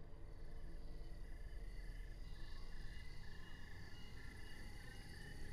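Crickets and other night insects chirping in short, repeated trills, over a faint low hum.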